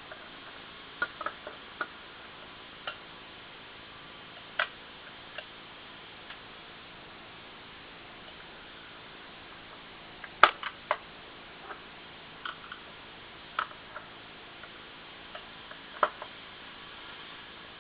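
Irregular small clicks and taps of tools and metal parts being handled while a hard disk drive is worked on, over a steady hiss, with the loudest click about ten seconds in.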